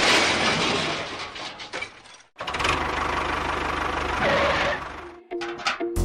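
A small motor running with a fast, even rattle. It breaks off briefly about two seconds in and stops about five seconds in. Music with a repeating note begins near the end.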